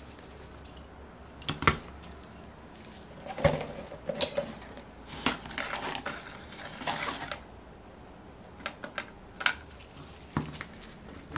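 Handling noise on a workbench: irregular clicks and knocks of a small aluminium engine crankcase and hand tools being moved and set down, with a short stretch of scraping and rustling in the middle.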